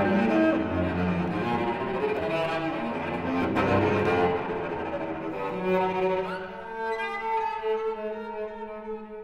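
Solo cello, bowed: a dense, forceful passage of low notes with sharp bow attacks for about the first four seconds, then long held notes higher up that grow quieter toward the end.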